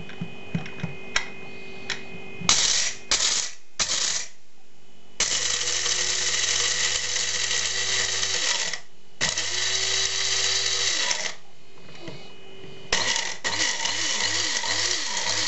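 Krups F203 electric blade grinder grinding coffee beans in pulses: a few short bursts, then two runs of a few seconds each, then a string of short pulses near the end, the motor winding up and down each time. Light clicks come before the first burst.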